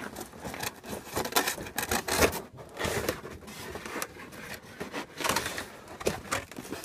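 Cardboard box being handled and shifted on a bench: irregular rubbing, scraping and light knocks of cardboard.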